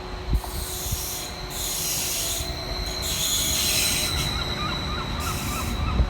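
Train running through the station: wheel-on-rail rumble with repeated hissing surges, each about a second long, and a faint steady high whine.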